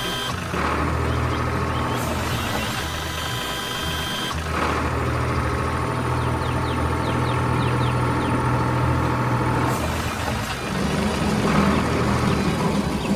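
Engine of a heavy work vehicle running steadily, with its tone changing a few times, about half a second in, at around four and a half seconds, and near ten seconds.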